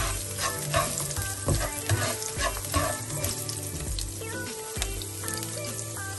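Minced garlic sizzling as it is sautéed in oil in a nonstick wok, with a spatula stirring it and scraping and tapping against the pan.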